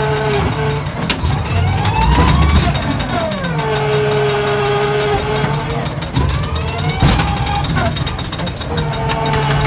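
Ghost-train car running along its track, a steady motor whine that rises and falls in pitch several times as it speeds up and slows, with a few sharp clunks along the way.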